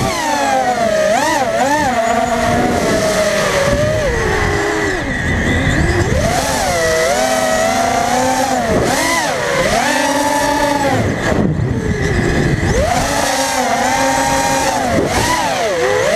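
FPV racing quadcopter's brushless motors whining close to the onboard camera, the pitch swooping up and down every second or so with the throttle and dropping sharply twice, over a steady rush of air.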